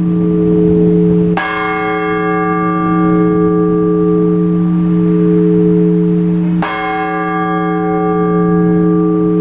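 Large Orthodox church bell struck twice, about five seconds apart, each stroke ringing on with a long deep hum that carries into the next. This is the slow, measured single-bell tolling of blagovest.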